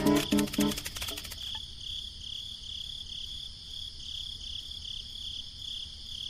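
Crickets chirring steadily in a high, even trill. Over the first second and a half, a few quick stepped notes with a rattle play over it and then stop.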